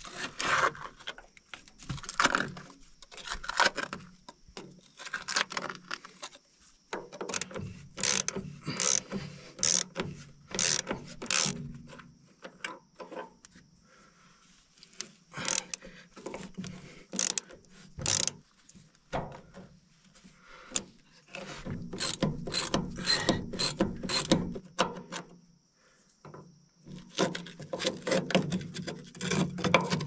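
Hand ratchet wrench clicking in repeated runs, with short pauses between them, as the bulldozer's hydraulic hose fittings are loosened for removal.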